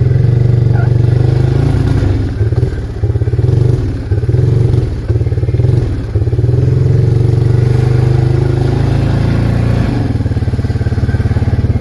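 Arctic Cat 366 ATV's single-cylinder four-stroke engine running, dipping in level several times between about two and six seconds in as the throttle comes on and off, then running steadily before easing slightly about ten seconds in.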